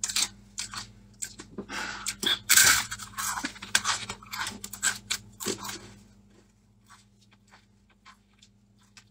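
Crunching of a dry, uncooked instant noodle cake being bitten and chewed: quick crisp crackles for about six seconds, loudest a couple of seconds in, then only a few faint crunches.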